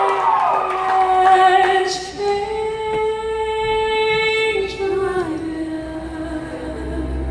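Female lead vocalist singing live, holding one long note from about two seconds in that slides down a little after the five-second mark.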